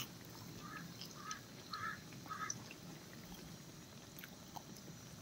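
Pakoras deep-frying in hot oil, a faint sizzle with small crackles. Over it a bird calls four times in quick succession, about twice a second, in the first half.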